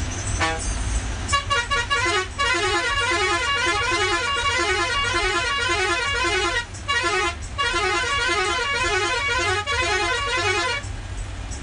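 Bus multi-tone musical horn sounding a fast, repeating run of notes for about nine seconds, with two short breaks a little past the middle, over the low rumble of the bus's engine and tyres.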